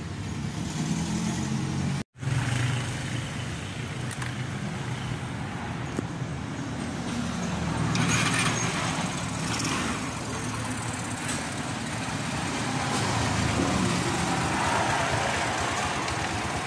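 Motorstar 150 motorcycle engine running steadily. The sound breaks off for an instant about two seconds in.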